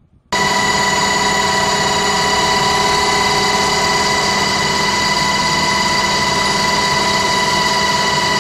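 Steady engine drone heard inside an aircraft cockpit: a constant hum with several fixed tones over a hiss, starting abruptly just after the start.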